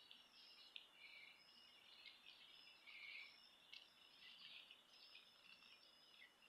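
Near silence outdoors, with faint high-pitched chirps and short trills from birds in the background, repeating every second or so.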